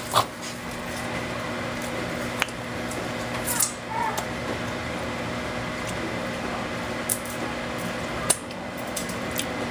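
A steady electrical hum with a few sharp clicks and taps scattered through it.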